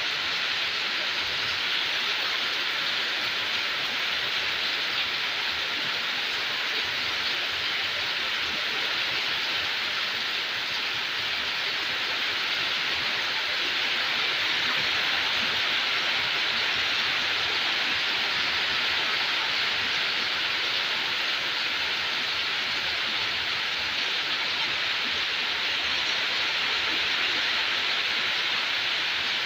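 Steady rain hiss, an even wash of noise with no single drops standing out.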